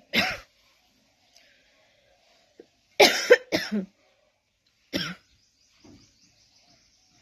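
A person coughing: one cough at the start, two in quick succession about three seconds in, and a last one about five seconds in.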